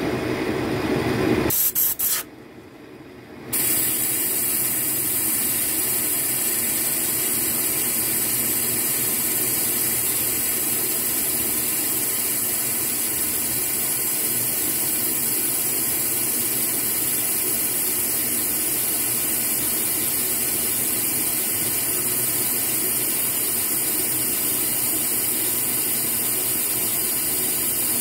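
Metal lathe boring out a wheel hub with a boring bar. After a short drop-out a steady, even hiss starts about three and a half seconds in and holds without change.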